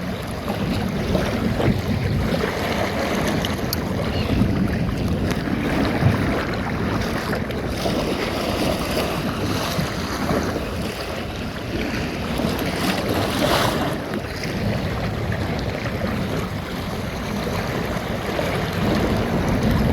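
Water rushing and splashing along the hull of a small open sailboat under way, with wind buffeting the microphone.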